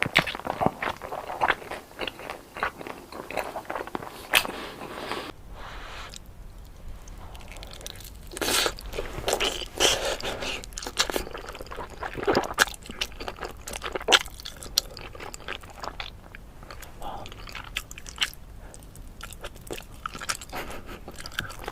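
Close-miked eating: a run of crunchy bites and chewing, many sharp crunches one after another. About five seconds in the background changes and a low hum comes in under the crunching.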